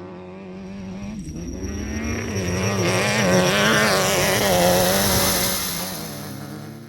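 An engine running with a steady pitched drone that wavers slightly, growing louder towards the middle and then fading away.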